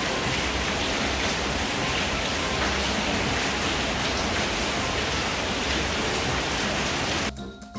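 Heavy rain pouring down in a dense, steady hiss. It cuts off suddenly near the end.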